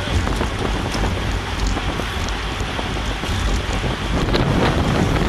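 Wind rushing over a bicycle-mounted action camera's microphone at racing speed, about 30 mph: a steady rush with a heavy low rumble and a few faint clicks.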